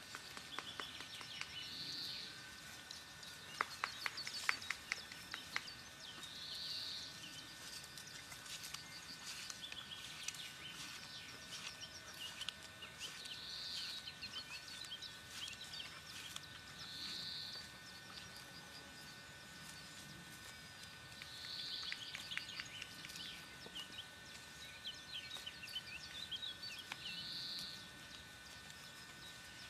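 Birds singing in open country: a short high call repeated every few seconds among scattered chirps, over a faint steady high hum.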